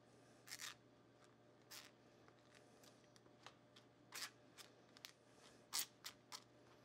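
Faint, irregular scrapes and clicks of a spoon working against a wire mesh strainer, pressing sauce solids through into a saucepan.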